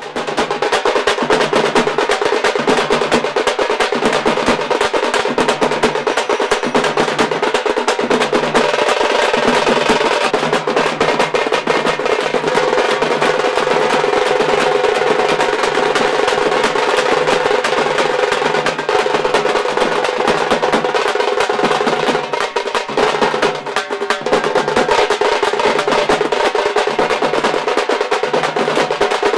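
Fast, unbroken drumming: a dense roll of quick strokes with a deeper beat recurring at a steady pace, over a steady held tone.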